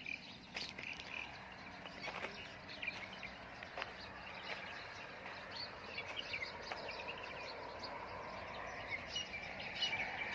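Birds chirping: many short, scattered calls over faint outdoor background noise. The calls get busier near the end.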